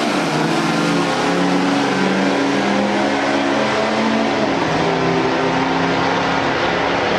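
Two pickup trucks racing at full throttle down a drag strip: a Dodge Ram SRT-10's V10 and a Dodge Ram diesel running hard. The engine note steps down at gear changes, once near the start and again about halfway through.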